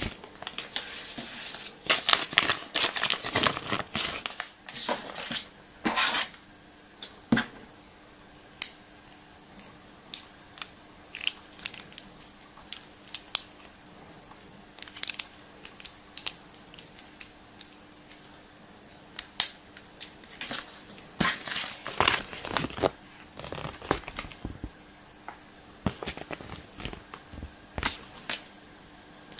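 Foil and plastic wrappers of chocolate surprise eggs being torn open and crinkled in two spells, with scattered sharp clicks and snaps in between.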